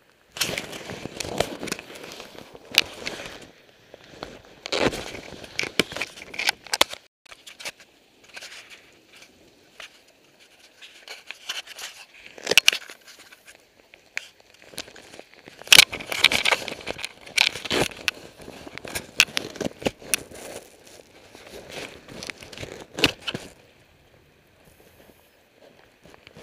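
Irregular crackling and rustling close to the microphone, coming in loud clusters with short pauses and dying away a few seconds before the end.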